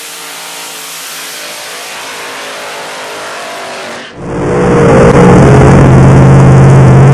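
Supercharged Hemi funny car engine, first heard from trackside as a faint running note under a steady hiss, then about four seconds in very loud and close from inside the car, running steadily with a strong low drone and overloading the microphone.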